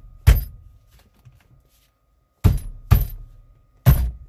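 Steering wheel of a 2011 Hyundai Sonata being banged on to work it loose from the steering shaft, after its retaining nut is removed: four sharp knocks with a brief metallic ring. One comes just after the start, then three in quicker succession in the second half.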